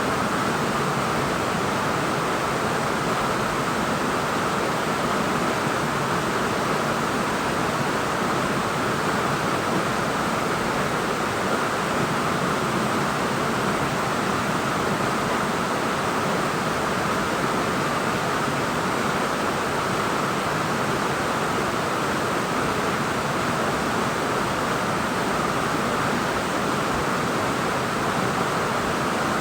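Waterfall, a steady even rush of falling water without breaks or changes.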